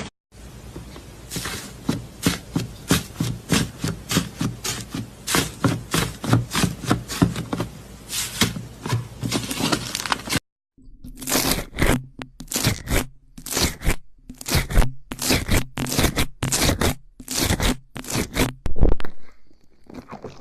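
Slime being squeezed and pressed by hand, giving a run of crackling, popping strokes at about two to three a second. The sound breaks off about ten seconds in and starts again.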